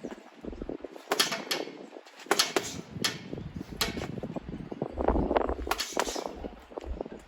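Gloved punches striking a punch bag in quick, irregular combinations of two and three blows, about a dozen hits in all.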